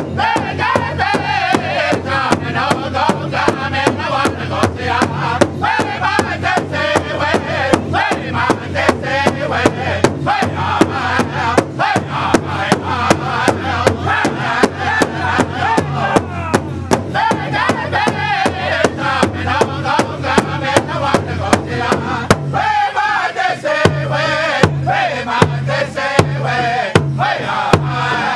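Northern-style powwow drum group singing in high, strained chanting voices over a steady unison beat on a large rawhide powwow drum. Near the end the voices thin briefly and the drum strokes stand out more.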